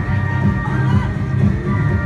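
Pop dance track played loud through a stage loudspeaker, with a heavy, steady bass beat.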